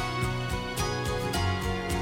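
Background music: a gentle instrumental track with a steady beat and plucked notes.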